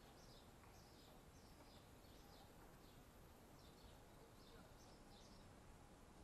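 Very faint bird chirping: repeated short high notes, about two a second, with a brief pause near the middle, over quiet outdoor background.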